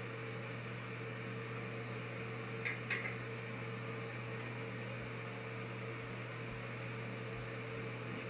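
Steady hum of a fan running, with two brief light clicks about three seconds in.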